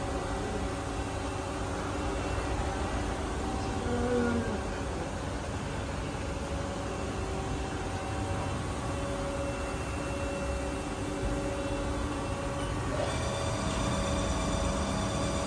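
Haas SL-10 Big Bore CNC lathe running with its spindle at about 985 rpm: a steady machine hum with several whining tones. A new set of higher tones comes in about 13 seconds in.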